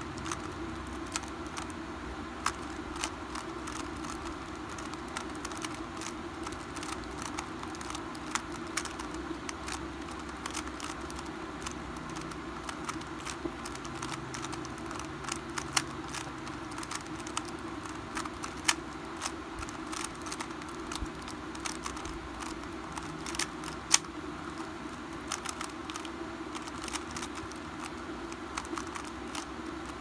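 Metallized 3x3 Rubik's cube being turned by hand, its layers clicking and clacking in quick, irregular succession over a steady low hum.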